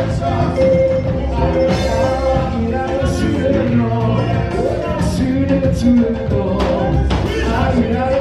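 Live praise-and-worship band playing an upbeat song with drums, bass and guitar, a singing voice faintly in the mix.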